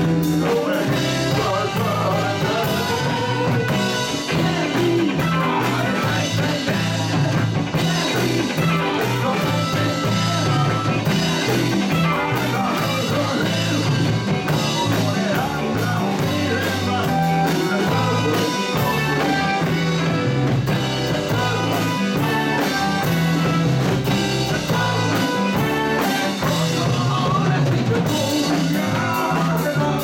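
A live rock band playing, with a drum kit, congas, electric guitars and keyboards, and a man singing lead into a microphone.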